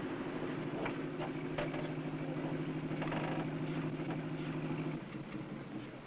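A large engine of heavy machinery running steadily, with a fine rapid pulse and a few light knocks over it. It cuts off abruptly about five seconds in.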